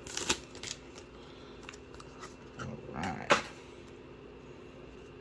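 Foil Star Wars Destiny booster pack and its cards being handled: scattered rustles and light taps, building to a louder burst of rustling that ends in one sharp click about three seconds in.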